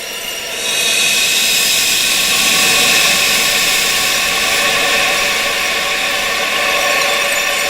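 Steady rushing wind noise, brightest in its upper range, swelling louder a little under a second in and then holding.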